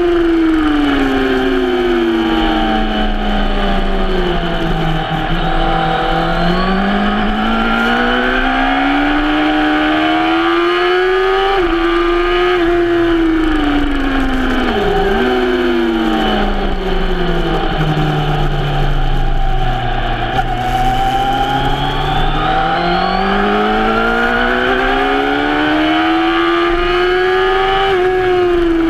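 Suzuki GSX-R sportbike's inline-four engine at track pace, over steady wind rush. The revs fall away twice, then climb again as the bike accelerates. There is a short sharp dip in pitch about halfway through.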